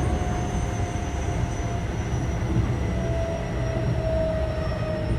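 Keio 7000 series electric train running: a steady low rumble of wheels on track under thin whining tones from the inverter-driven traction motors, which slowly fall in pitch as the train slows.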